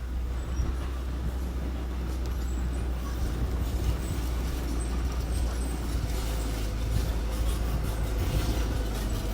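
Diesel engine of small earth-moving machinery running steadily with a low rumble, with faint scattered clatter over it.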